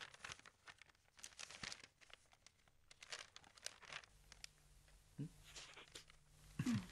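Magazine pages being turned and handled, the glossy paper rustling and crinkling in quick, irregular crackles. A brief low falling tone sounds near the end.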